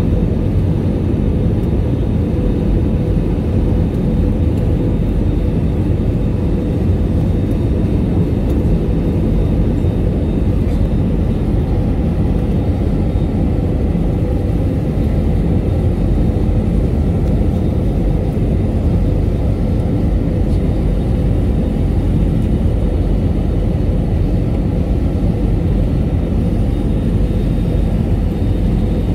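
Steady cabin noise of an Airbus A320 in flight on final approach with the landing gear down: a deep, even rumble of airflow and engines with a faint steady hum over it.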